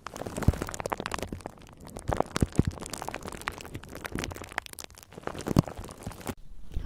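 Close-miked ASMR trigger sounds: dense crackling and clicking with a few louder soft knocks, going quieter near the end.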